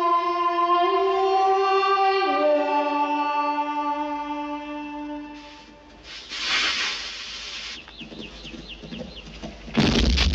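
Film score music holding long notes that step down in pitch. Then a cannon fuse hisses briefly as it burns, and near the end a cannon blast goes off with a loud, heavy boom.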